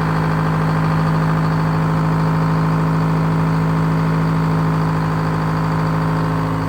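A motor running at a steady speed with a strong, even hum.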